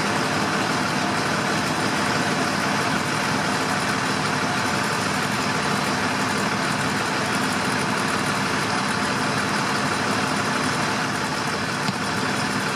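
A fire engine running steadily with its motor and pump, under a steady rushing hiss of water from a fire hose.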